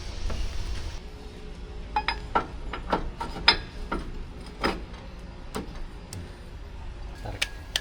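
Irregular metallic clinks and knocks of tools and parts striking metal, about a dozen over several seconds, some ringing briefly. A steady hiss stops about a second in, and a low rumble runs underneath.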